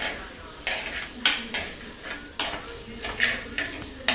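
A spoon stirring and scraping onions and coriander powder round a frying pan, about two strokes a second, over the steady sizzle of the onions frying in oil.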